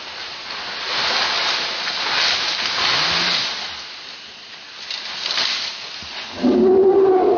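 A charging elephant crashing through brush and undergrowth: a loud rushing, rustling noise that swells and eases twice. About six and a half seconds in comes a loud pitched cry.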